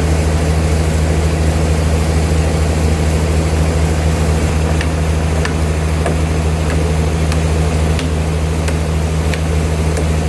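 Old sawmill machinery running with a steady, loud low drone, joined by faint light ticks from about halfway through.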